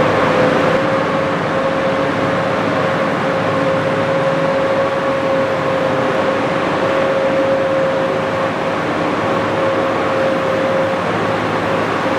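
Four-rotor feed mixer running as it churns silage, a steady mechanical whine over the constant noise of the machine.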